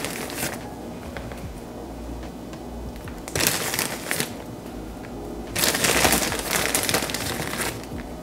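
Plastic bag of mini marshmallows crinkling in three separate bursts of rustling as a handful is taken out.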